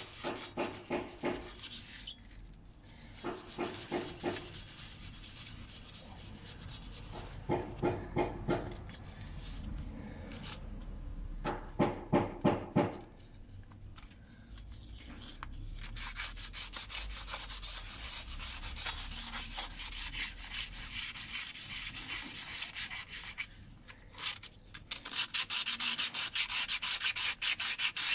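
Sandpaper rubbed by hand over a Suzuki Swift's steel wheel, taking light surface rust back to bare metal. It comes in short bursts of quick back-and-forth strokes with pauses, then in longer runs of steady, fast scratching in the second half.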